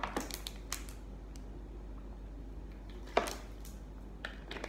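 Table-handling sounds while eating a seafood boil: a few sharp clicks and knocks of shells and utensils, the loudest about three seconds in, over a steady low hum.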